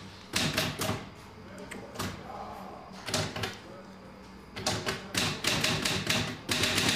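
Typewriter keys clacking in short, quick bursts of keystrokes separated by pauses.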